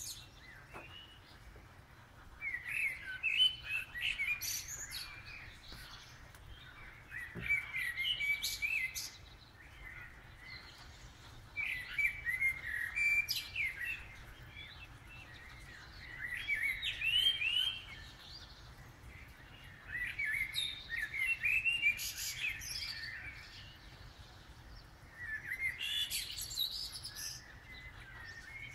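Eurasian blackbird singing its dawn song: about six fluting phrases a few seconds apart, several ending in a higher twitter.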